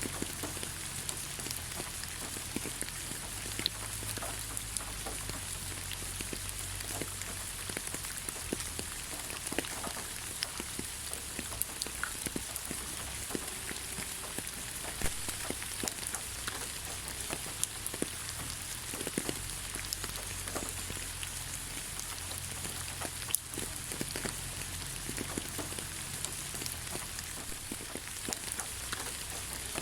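Steady rain falling on the ground: a continuous hiss with many individual drops ticking and splashing close by.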